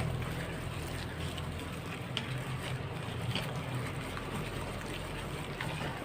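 Wet batter-coated meat pieces being mixed in a bowl: a steady wet squishing with a few faint clicks, over a low steady hum.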